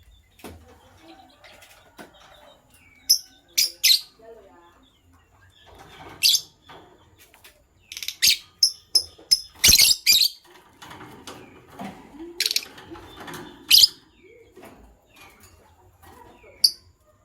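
Lovebirds calling with short, sharp, high-pitched chirps in scattered bursts, most crowded together around the middle.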